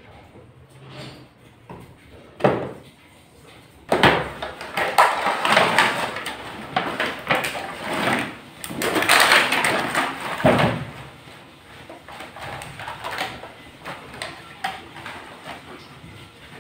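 Cardboard toy box and clear plastic packaging tray being handled: a knock, then a long stretch of scraping and rustling as the tray is slid and worked out of the box, with knocks against the table, fading to lighter handling noise in the last few seconds.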